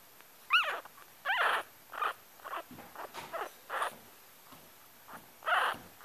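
Very young Yorkshire terrier puppy crying: a string of short, high squeaks and whimpers, the first two arching up and then down in pitch, about seven or eight in all.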